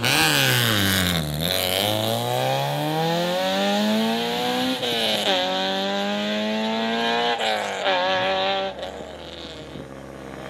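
Peugeot 106 rally car launching from the stage start at full throttle, its engine note climbing through the gears with two sharp drops at upshifts, then fading as the car pulls away into the distance.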